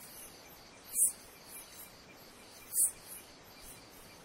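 Insect calls: two short, very high-pitched chirps about two seconds apart, over a faint steady high-pitched insect hum.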